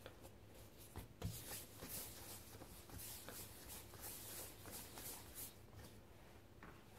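Hands rolling and tightening a ball of yeast dough on a floured countertop: faint rubbing and brushing against the counter, with a couple of soft knocks about a second in.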